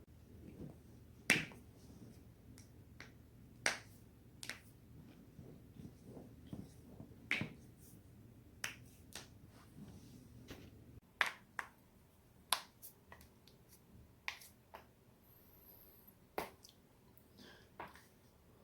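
A person's neck and back joints being cracked: a string of sharp, separate pops, about twenty in all, coming at irregular intervals of roughly half a second to a second and a half.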